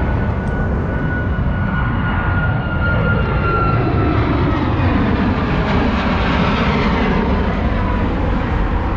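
Jet airliner climbing out low overhead, its engines a loud steady rush with a high whine that slowly falls in pitch.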